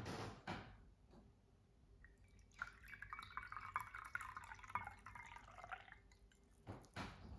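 Green tea poured from a teapot into a porcelain teacup: a thin stream splashing and filling the cup for about three seconds, starting a couple of seconds in. A few soft knocks come at the very start and again near the end.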